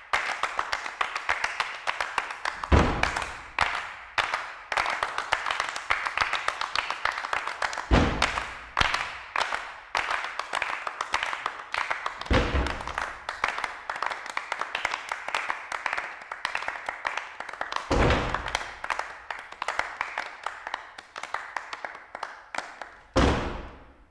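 Rapid, dense hand claps and taps from six performers, broken by five heavy thumps spaced several seconds apart. It all stops just before the end.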